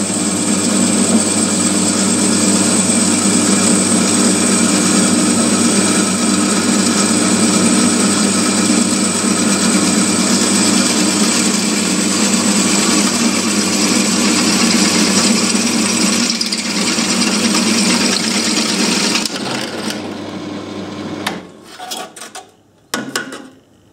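Bench drill press running with its bit cutting through a hardened handsaw blade that was spot-annealed with a MIG weld: a steady hum with a high whine. About 19 seconds in the drill is switched off and winds down, followed by a few clatters as the blade is lifted.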